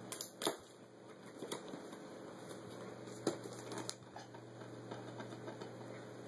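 A gift box in wrapping paper being handled and shaken by a small child: scattered taps, knocks and paper rustles, the sharpest about half a second in, over a steady low room hum.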